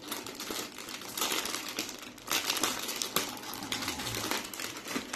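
Plastic wrapper of an Oreo snack pack crinkling and crackling in uneven bursts as hands handle it and work it open.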